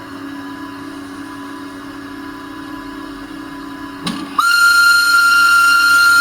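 Sound decoder in an LGB G-scale model of an RhB Ge 4/4 III electric locomotive playing its recorded standstill hum, then, about four seconds in, a loud high single-tone warning whistle held for about two seconds.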